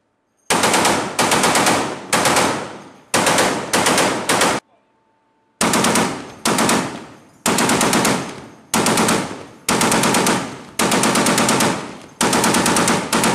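Heavy machine gun firing a string of short bursts, each a rapid run of sharp shots, with a pause of about a second a third of the way in before the bursts resume.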